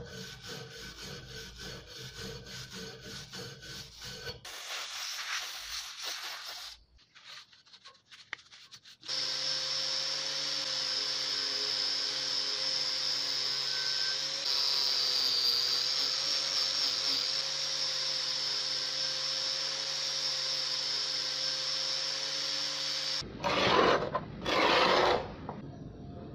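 Hand abrasion of a rusty pruner handle clamped in a vise: rapid scraping strokes of a flat abrasive block on the metal. After a short pause, an angle grinder with a wire cup brush runs steadily for about fourteen seconds, stripping rust from the handle. Two short, loud bursts of noise come near the end.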